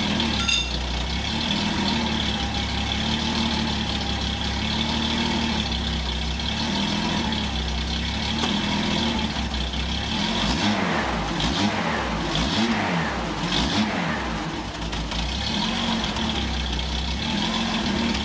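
1976 Datsun 280Z's straight-six engine idling steadily, its speed wavering up and down a few times between about ten and fourteen seconds in. It is running smoothly, "purring like a kitten".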